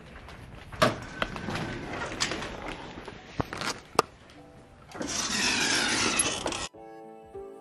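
Handheld walking noise with a few sharp knocks and clicks, then a loud rush of noise for under two seconds as he passes out through the glass doors. Background music with plucked notes starts near the end.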